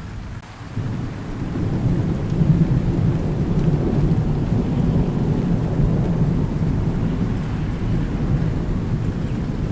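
Thunder rumbling low and long over steady rain, swelling about a second in and rolling on without a sharp crack.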